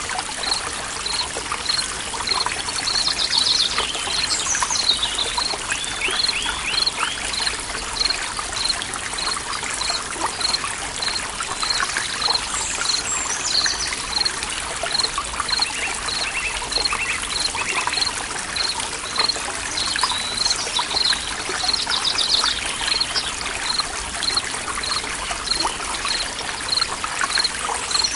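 Forest ambience: a steady trickle of running water with several birds chirping and trilling now and then, and a regular high chirp repeating about twice a second.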